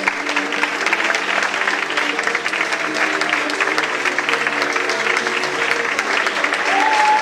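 Audience applauding over tango music, with one long whistle near the end.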